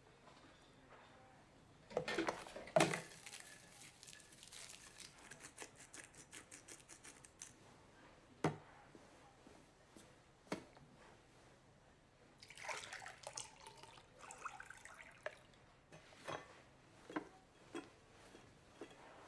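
Quiet kitchen handling sounds: scattered knocks and clinks of dishes, plastic containers and a glass being picked up and set down on a counter. There is a louder clatter about two seconds in and a longer rustling, scraping stretch past the middle.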